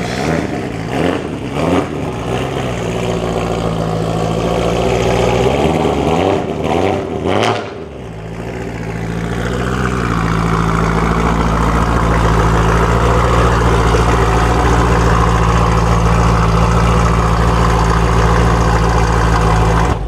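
BMW E92 M3's 4.0-litre V8 revved in a few quick rising-and-falling blips, then running steadily at a constant, loud level for the second half.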